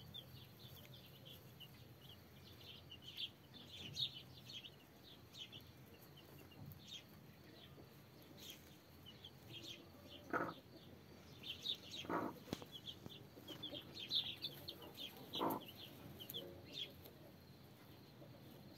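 Day-old chicks peeping: many short, high cheeps that keep coming all through. Three times in the second half the mother hen gives a lower, longer cluck.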